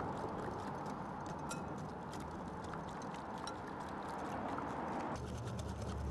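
Wire whisk beating olive oil into a wet herb paste in a glass bowl: a steady swishing with many small clicks of the wires against the glass.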